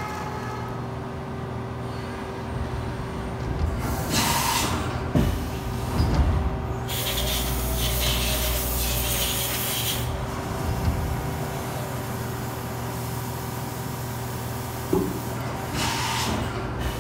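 CNC milling machine cutting a metal bracket plate under flood coolant: a steady spindle tone with the noise of the cut. Louder hissing bursts come about four seconds in, from about seven to ten seconds with a low rumble under them, and again near the end.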